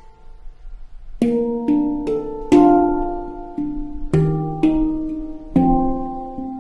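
Oasis Sound Sculpture handpan (Eb Aegean, 17 notes) played by hand. After about a second of quiet as the last note dies away, the playing resumes with a melodic run of struck notes, about two a second, each note ringing on with bell-like overtones.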